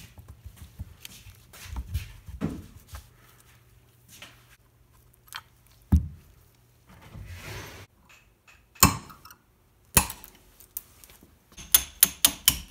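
Cast-iron South Bend lathe apron parts clinking and knocking as they are handled, with a few single sharp metal knocks. Near the end comes a quick run of hammer taps on metal, about six in a second.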